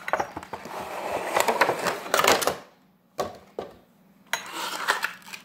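Clear plastic packaging rustling and crinkling as two acrylic sprayer bottles are taken out of their box, with scattered light clicks. The rustling stops for over a second in the middle, broken by two short clicks, then starts again.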